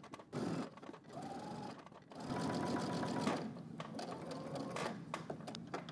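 Sewing machine stitching through layered denim, understitching a fly facing. It starts and stops briefly a couple of times, then runs steadily from about two seconds in.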